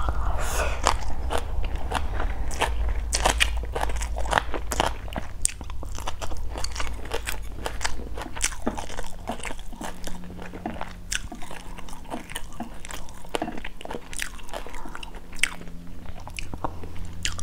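Close-miked chewing of a mouthful of rice and fried salmon, with many short wet clicks and crunches from the mouth.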